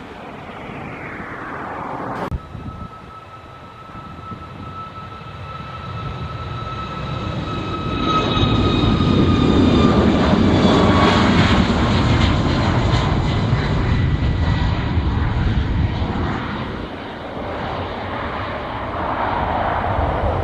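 Airliner's engines passing by, building to a loud peak midway, with a high whine whose pitch slowly falls as the plane goes past. There is a single sharp knock a couple of seconds in.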